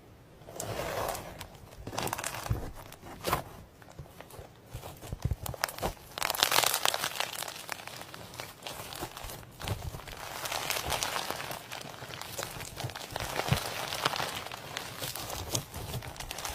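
Soft slime being squeezed and stretched by hand, giving many tiny sticky clicks and pops that come in uneven waves.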